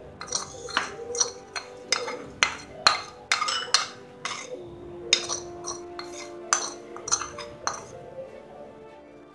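A metal spoon scraping and clinking against a small metal tempering pan and the rim of a ceramic bowl, sharp clinks about twice a second that thin out near the end, with background music.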